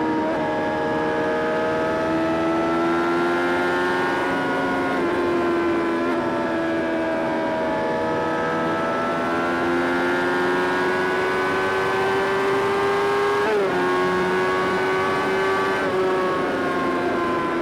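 Honda CBR600RR (PC37) inline-four engine running under way at mid revs. Its pitch rises and falls slowly with the throttle, with a brief step down in pitch about two-thirds of the way through.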